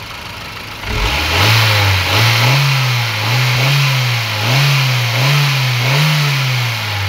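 Honda Civic Type R (EK9) B16B 1.6-litre DOHC VTEC inline-four idling, then revved up about a second in and held there with about six throttle blips, dropping back toward idle near the end. The seller judges that nothing seems amiss in how it revs up.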